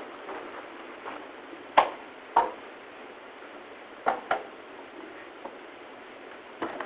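Courtroom room noise, a steady hiss, broken by five short sharp clicks and knocks: two close pairs, then a single one near the end.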